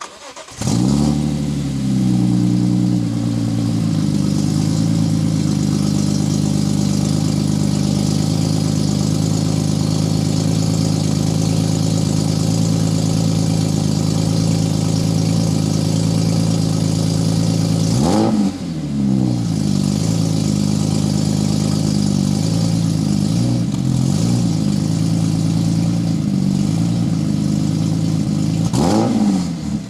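BMW E46 M3's S54 straight-six, breathing through aftermarket headers and a gutted stock muffler, catches and flares up, then settles into a steady, loud idle. It is blipped twice, once partway through and once near the end.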